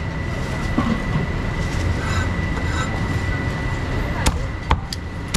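A cleaver chopping roasted duck on a thick round chopping block, with three or four sharp knocks in the second half. Under it run a steady low rumble and a constant high-pitched whine.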